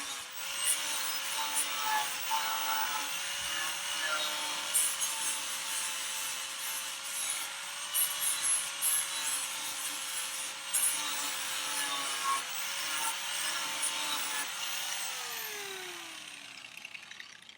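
Angle grinder sharpening the edge of a clamped steel lawnmower blade: a steady motor whine over the rasp of the disc on the metal. It is switched off about 15 seconds in and winds down, falling in pitch.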